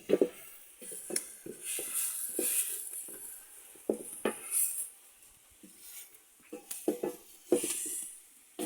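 Dishes and metal utensils knocking and clinking irregularly, with stretches of scraping hiss between the knocks.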